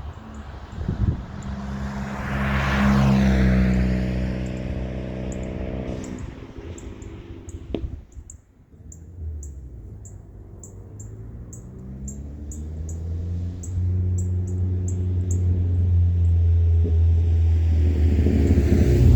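Ford Fiesta ST's turbocharged four-cylinder running through an aftermarket cat-back exhaust, with a steady exhaust drone. It drops away briefly about eight seconds in, then builds and grows louder again.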